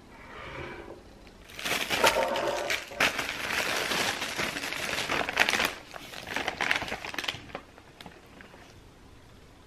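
Wrapping crinkling and rustling as it is handled and pulled open around a wrap, in irregular bursts that die down about two seconds before the end.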